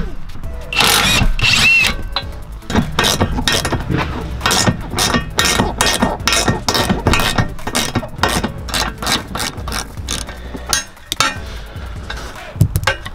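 Hand socket ratchet clicking in quick, even strokes, about four a second, as bolts on a fridge slide are tightened, after a louder noisy burst near the start.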